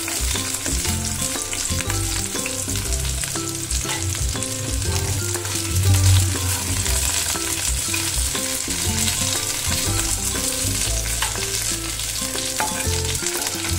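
Small tilapia fish sizzling as they fry in hot oil in a pan, with a metal spatula scraping the pan as the pieces are turned and lifted out.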